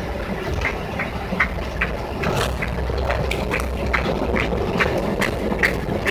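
Airliner rolling along the runway, heard from inside the cabin: a steady low rumble with short squeaky clicks repeating evenly, about two to three times a second.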